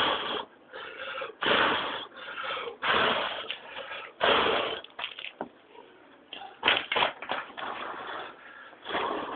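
A person blowing hard on a campfire in repeated strong puffs of breath, about one every second and a half, to fan the embers into flame.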